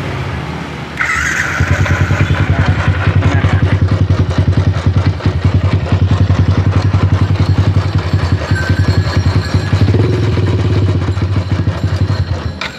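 Yamaha Jupiter MX's single-cylinder engine is started about a second in, then runs with a rough, raspy, rubbing noise. The mechanic puts the noise down most likely to a worn or damaged bearing, probably the water pump bearing. The level drops near the end.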